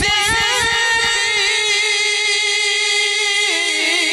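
A man singing a naat into a microphone, holding one long, slightly wavering note that steps down in pitch near the end.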